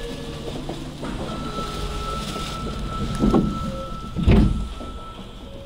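Subway train sounds: a steady rumble with a thin, high, steady tone that starts about a second in and stops near the end. Two heavy thumps come about three and four seconds in, the second the louder.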